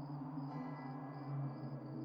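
Dark ambient horror drone: low sustained droning tones under a high, evenly pulsing chirr, with a soft gong-like tone swelling in about half a second in.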